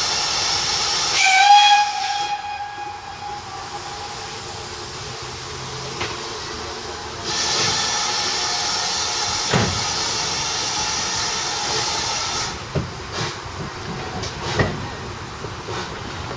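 GWR 0-6-0 steam locomotive No. 3205 venting steam in a steady hiss, with a short whistle blast about a second in. The hiss comes again about seven seconds in, and a few sharp knocks follow near the end as the train starts away from the platform.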